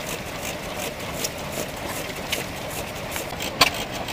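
Vintage horizontal single-cylinder stationary engine running, with sharp, irregularly spaced reports, the loudest about three and a half seconds in, over a steady mechanical hum.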